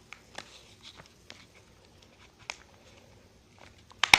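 A hand stapler driving a staple through folded paper: faint scattered taps of handling, then one sharp, loud clack near the end.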